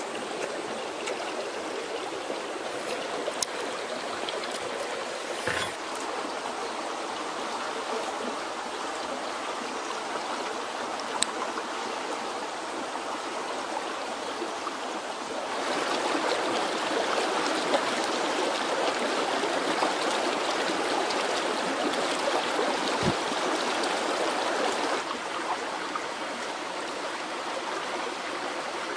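Steady rush of running water, which gets louder for about ten seconds in the middle and then drops back, with a few faint clicks.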